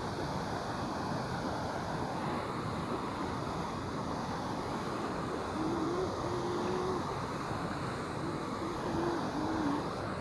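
Steady rush of turbulent water churning below a weir, with some wind on the microphone. A faint wavering tone comes in about halfway through.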